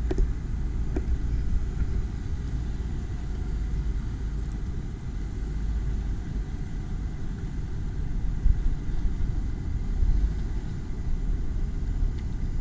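Low, steady rumble of a Jeep Wrangler JL Rubicon crawling slowly over a rock obstacle.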